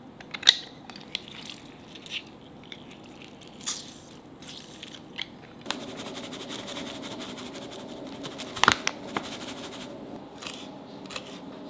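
Kitchen food-prep handling sounds: scattered small clicks, knocks and rustles as shredded potato for latkes is worked in a bowl and flour is poured in from a paper bag. A steady low hum comes in about six seconds in, and there is a sharp knock about two-thirds of the way through.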